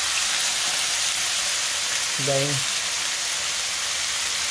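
Thin-cut steak sizzling steadily in hot oil in a frying pan.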